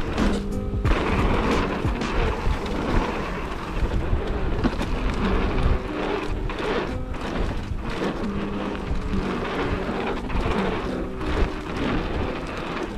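Wind rumbling on the microphone and tyre and frame noise from a mountain bike riding a singletrack trail, with background music playing underneath.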